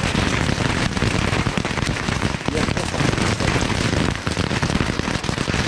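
Several firework tanks going off at once: a dense, unbroken crackle of many small rapid pops over a fizzing hiss.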